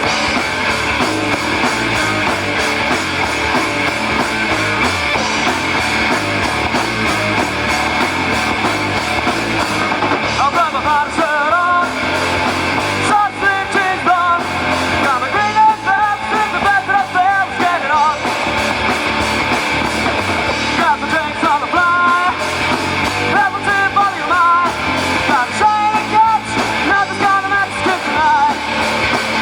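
Rock band playing live: electric guitar, bass and drums, with a singer's voice coming in about ten seconds in and continuing in phrases.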